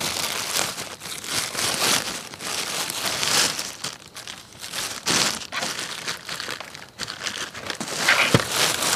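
Plastic bags crinkling and rustling as they are handled and rummaged through, in uneven stretches of louder and softer rustling.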